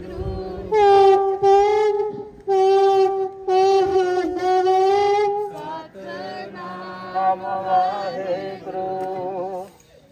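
Voices singing a Sikh devotional chant in long, steadily held notes, phrase after phrase with short breaths between. A faint steady low drone sits under the later phrases.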